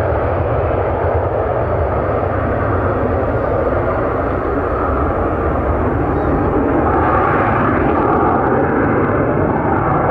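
Hawker 400XP business jet's twin Pratt & Whitney Canada JT15D turbofans at take-off power through the take-off roll and lift-off: a loud, steady jet rush with a faint high whine, growing a little louder about seven seconds in.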